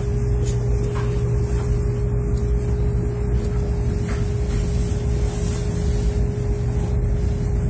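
Kyushu Shinkansen train running, heard inside the passenger cabin: a steady low rumble with a constant humming tone above it.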